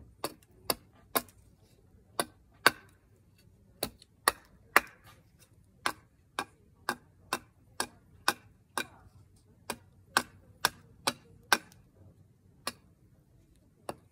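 Gränsfors Bruk small carving hatchet chopping into a block of wood: sharp, crisp strikes at about two a second, in short runs with brief pauses between them.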